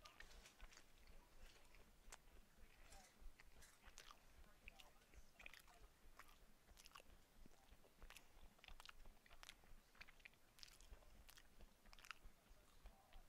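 Faint chewing with the mouth closed: soft, irregular wet mouth clicks and smacks, several a second.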